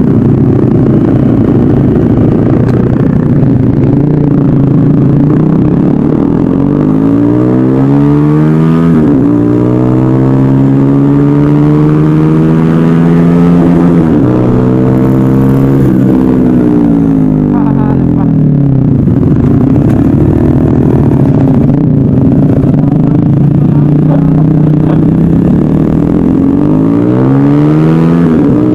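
Motorcycle engine running under way, its pitch repeatedly climbing and then dropping as the bike accelerates and shifts gears, over a steady low wind rush on the microphone.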